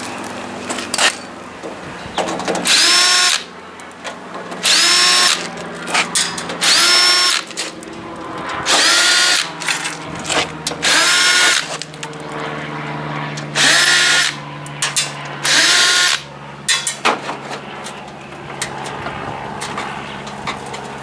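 Power drill driving screws out of a printer's back cover in about seven short runs of about a second each, the motor's pitch rising as it spins up each time.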